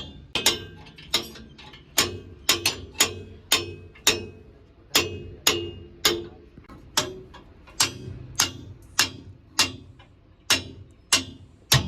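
Repeated hammer blows on metal at an uneven pace of about two a second, each strike sharp with a short metallic ring.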